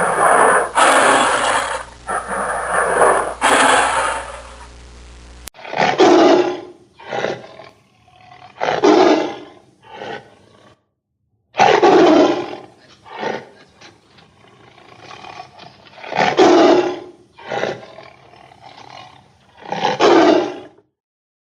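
Tigers roaring: dense, unbroken roaring with a low hum under it, then after an abrupt cut about five seconds in, a series of separate roars a few seconds apart, each followed by shorter, weaker calls.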